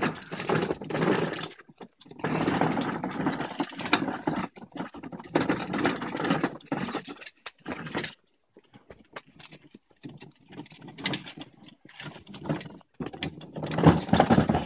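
Hard plastic wheels of a ride-on toy car rolling and rattling over concrete paving slabs as it is pulled along, in stretches of a few seconds with short pauses.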